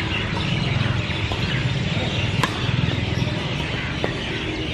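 Badminton rackets smacking a shuttlecock during a rally: short, sharp hits, the loudest about halfway through and another near the end. Birds chirp over a steady low background hum.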